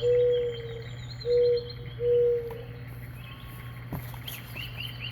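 A bird cooing: three long, low, steady coos in the first three seconds, over faint high chirping throughout.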